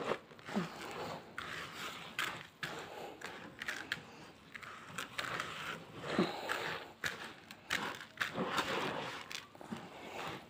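A hand squishing and turning a wet rice stuffing in a bowl: irregular, repeated rustling squelches of oiled rice, herbs and tomato paste being kneaded together.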